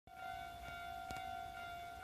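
Japanese railway level-crossing alarm ringing its steady electronic bell tone, the warning that a train is approaching. A brief click sounds about a second in.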